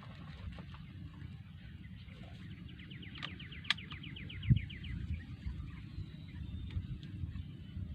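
A bird's rapid trill: a run of quick falling notes, about eight a second for two seconds, over a steady low rumble. Two sharp clicks fall inside the trill, and a short low thump follows just after it.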